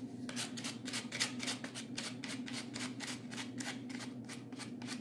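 Fine-grit sandpaper rubbed back and forth over the edge of a baked polymer-clay piece, a quick even run of rasping strokes at about four a second, smoothing its rough edges.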